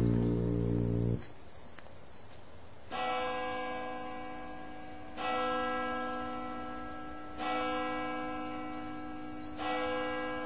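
A piece of music ends abruptly about a second in, then a bell tolls four times, about two seconds apart, each stroke ringing out and fading. A few short high chirps are heard between the strokes.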